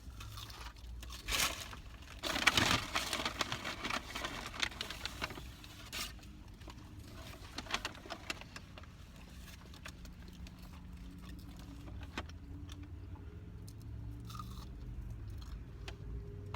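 Paper fast-food wrappers and bag rustling and crinkling in bursts during the first few seconds, then scattered small handling clicks and eating sounds over a low steady hum.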